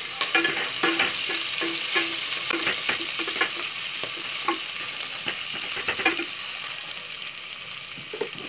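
Sliced onions and whole spices sizzling in hot oil and ghee in an aluminium pressure cooker, stirred with a spatula that scrapes and knocks against the pan in quick strokes. The stirring stops about six seconds in and the frying sizzle goes on alone.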